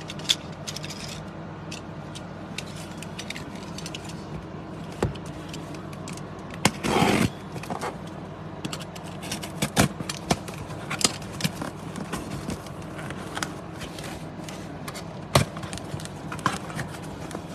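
Scattered small clicks, taps and scrapes of things being handled, with one brief rustling scrape about seven seconds in, over a steady low hum.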